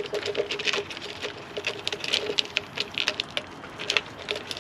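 A raccoon pawing and digging at a plastic ball-track cat toy: rapid, irregular clicking and rattling.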